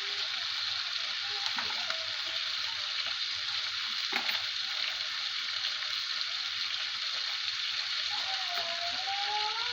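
Food sizzling in hot oil in a pan, a steady hiss, with a sharp click about four seconds in.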